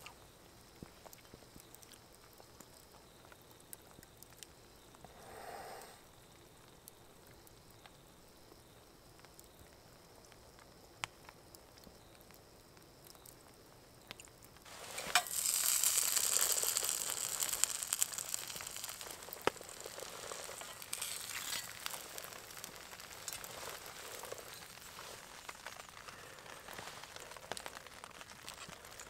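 Two eggs frying in a cast-iron pan over a campfire, with scattered sharp crackles from the fire. Quiet at first, then about halfway a loud, hissing sizzle sets in suddenly and slowly dies down.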